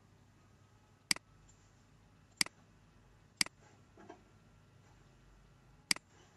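Computer mouse clicking four times, each a sharp click followed closely by a quieter release click, spaced about one to two and a half seconds apart.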